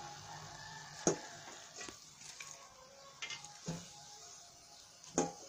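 Vegetable rolls sizzling in hot frying oil while a perforated metal skimmer lifts them out, clicking against the pan about five times, loudest about a second in and near the end.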